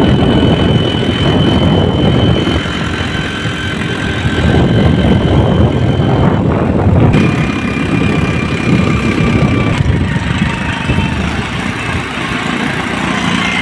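Motorcycle engine running while riding, with wind rushing over the microphone. A faint steady whine drops a little in pitch about halfway through.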